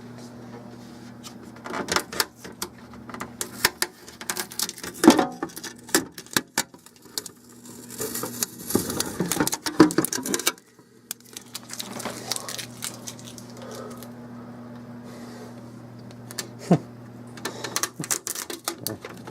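Scattered clicks, knocks and rustling of things being handled, over a steady low hum.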